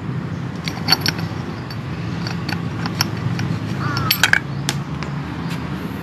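Scattered light metallic clicks and clinks, about half a dozen, as a metal cap is fitted by hand onto a brush cutter's nylon-line trimmer head and the lines are seated in their slots. Underneath is a steady low hum.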